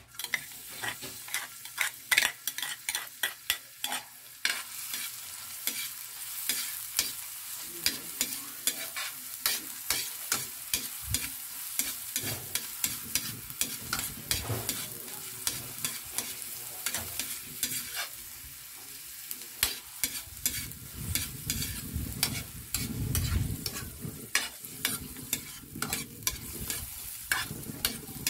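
Chopped red onion sizzling in a hot aluminium wok, starting as it is tipped in, while a spatula scrapes and clacks against the pan again and again as it is stirred.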